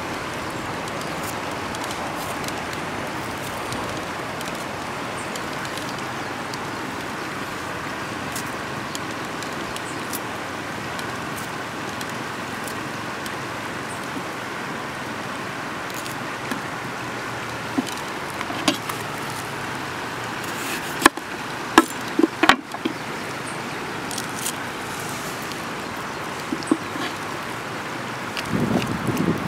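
Steady rushing of a river. A few sharp taps and clicks come through, clustered about two-thirds of the way in, as bell pepper pieces are handled on a wooden cutting board.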